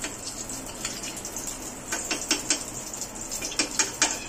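A steel spoon clinking against metal cookware as ghee is spooned from a small steel bowl into a frying pan: a series of sharp, ringing clinks in uneven clusters.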